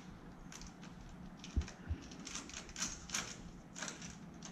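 Faint, irregular small clicks and taps of a nut driver and wire cable against a metal cable clamp as the cable end is fitted into the clamp, with two soft low bumps about a third of the way in.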